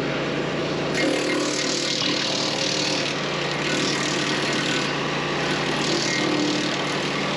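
DR wood chipper attachment running on its DR XL Pro engine, chipping branches: a steady engine drone with a harsher, high-pitched rasp of wood being chipped that comes in about a second in and swells and eases.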